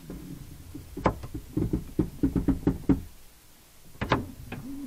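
Quick run of about a dozen sharp knocks from the Volvo XC90's power tailgate as it is moved by hand with one of its two lift motors removed. A short pause follows, then two more knocks near the end.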